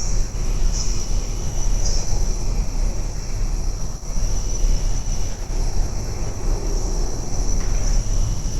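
Insects chirring steadily at a high pitch over a loud, continuous low rumble.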